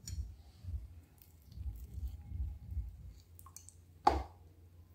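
A lime being squeezed by hand over a bowl: faint wet squishing with small clicks, and one sharper tap about four seconds in.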